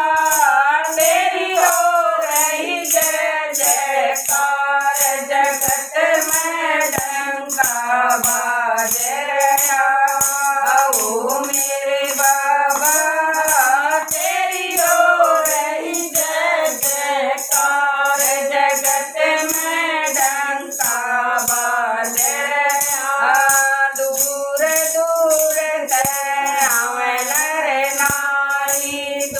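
A group of women singing a Hindu devotional bhajan together in unison. A hand-held jingling percussion, together with hand claps, keeps a steady beat of about two strikes a second.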